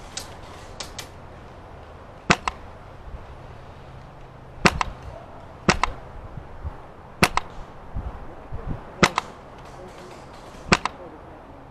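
Krytac SPR electric airsoft rifle firing single shots, about six sharp cracks one to two seconds apart, each followed at once by a second, fainter click.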